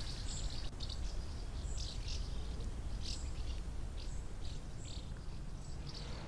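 Small birds chirping: short, irregular high chirps, a dozen or so, over a steady low outdoor rumble.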